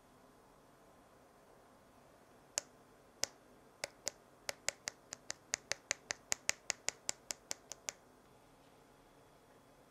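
Light, sharp taps to sprinkle edible gold dust onto a tart: about twenty clicks, a few spaced ones starting a couple of seconds in, then a quick even run of about five a second that stops near the end.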